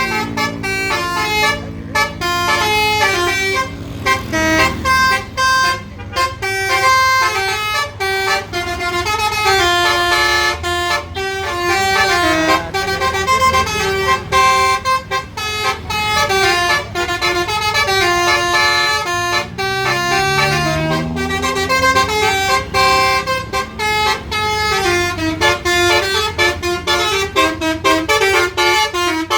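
Basuri telolet bus horn playing a fast, continuous melody of stepping notes over a low steady hum. About two-thirds of the way through, a low tone rises in pitch beneath the tune.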